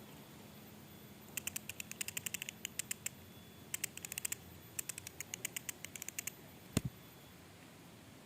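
Three runs of quick, sharp clicks, several a second, followed by one louder single snap near the end.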